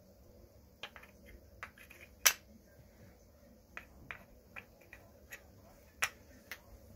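Wooden shape-sorter pieces clacking as they are slid onto the wooden pegs of a stacking board and knocked against each other: about a dozen sharp wooden clicks at uneven intervals, the loudest about two seconds in and another near six seconds.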